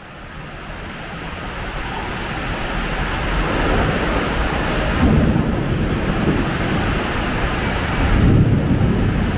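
Heavy rain fading in and building, with two low rumbles of thunder, about five seconds in and again near the end.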